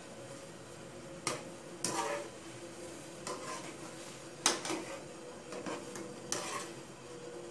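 Wire-mesh strainer ladle stirring wontons in a large aluminium pot of boiling water. The strainer knocks and scrapes against the pot about seven times, the loudest about halfway through, over a faint steady hum.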